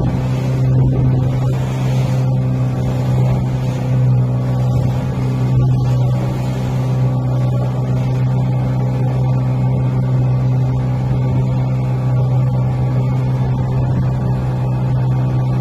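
Small wooden motorboat's engine running at a steady speed: a constant low drone, with the rush of water along the hull.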